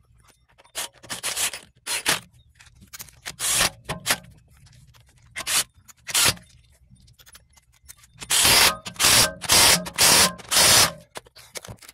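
A series of short scraping strokes from a hand tool worked at the lug bolts of a car wheel. The strokes come at uneven gaps at first, then five loud ones in quick succession near the end.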